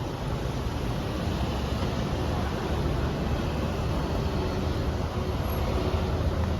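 Steady road traffic: a continuous low rumble of passing vehicle engines and tyres, with a faint engine hum partway through.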